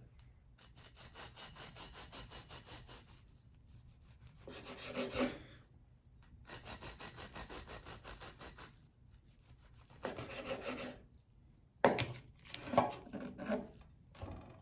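Serrated bread knife sawing back and forth through a loaf of banana bread, quick even strokes rasping through the crust, in two spells. Between and after them come louder scrapes and one sharp knock about twelve seconds in.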